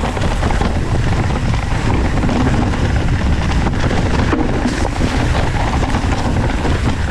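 Hardtail mountain bike descending fast on a leaf-covered dirt trail: a steady rumble of wind on the camera microphone mixed with tyre noise and rattle, and a few knocks from bumps in the middle.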